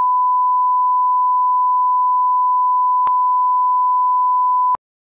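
Steady, loud, single-pitch reference tone played with video color bars (bars and tone), with a brief click about three seconds in; the tone cuts off abruptly near the end.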